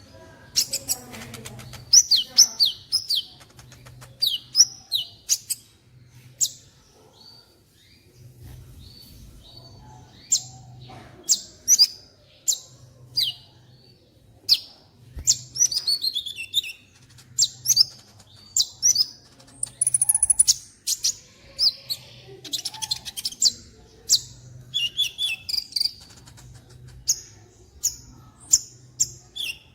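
Sunbird (the bird Indonesian keepers call 'kolibri') singing in continuous bursts of sharp, high chirps and quick downward-sweeping notes.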